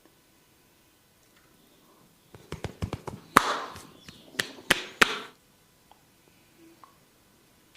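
A barber's hands slapping and tapping on a head during a massage: a quick run of sharp slaps and taps lasting about three seconds, starting a little over two seconds in, with brief hissing rubs between the loudest strikes.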